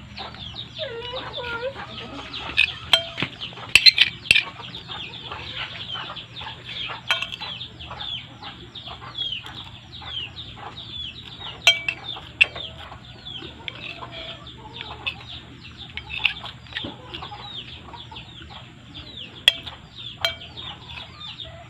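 Chickens clucking in a steady chatter of short, high, falling calls, with a few sharp clinks of a metal spoon against a ceramic plate.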